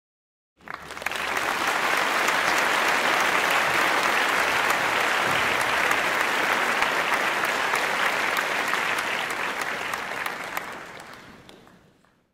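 Audience applauding: dense, steady clapping that starts abruptly about half a second in and fades away near the end.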